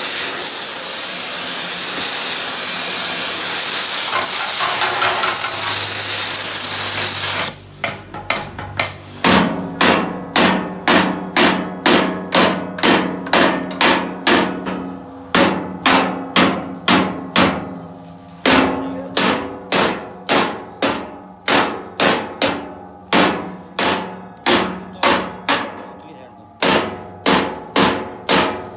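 A loud, steady hiss for about seven seconds, then a hammer striking steel over and over, about two ringing blows a second, with two short pauses.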